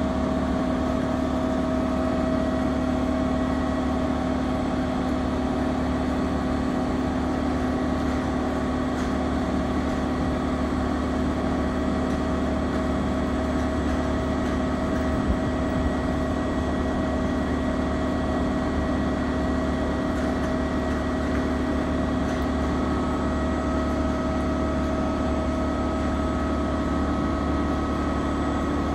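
Air compressor of the SNCF BB 22200-class electric locomotive BB 22262 running steadily while the locomotive stands, a continuous hum with several held tones. A higher tone joins about 23 seconds in.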